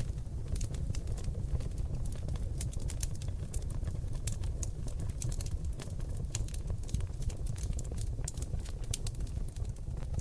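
Oak-log fire crackling in a fireplace: many sharp pops and snaps at irregular moments over a steady low rumble of the flames.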